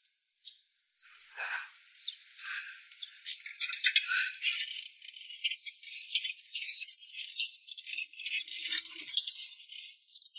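Dry, rapid rattling and clicking of hands handling a plastic electricity meter box and its circuit breaker, starting about three seconds in.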